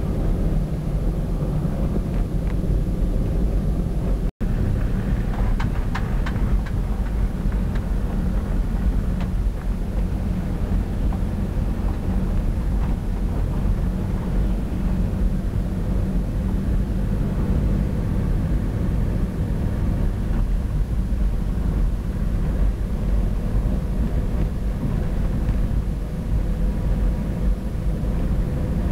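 Land Rover Defender driving at low speed, heard from inside the cab: a steady low engine and road rumble, broken by a momentary cut about four seconds in.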